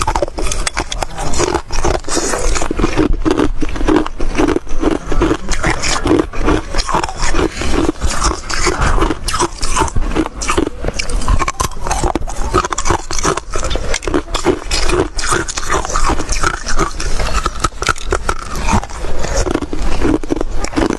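Close-up crunching and chewing of hard chunks of freezer frost: a dense, uneven run of crisp crunches that goes on without a break.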